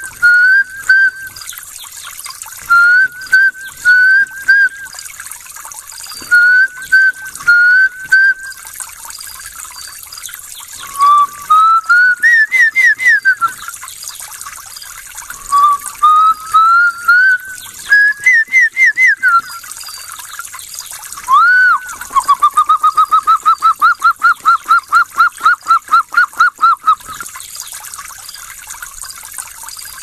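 A man whistling imitations of Tanzanian bird calls. Short groups of three or four rising whistled notes are followed by two runs of notes that climb in pitch, then a single swooping note and a fast run of about four to five notes a second, over a steady hiss.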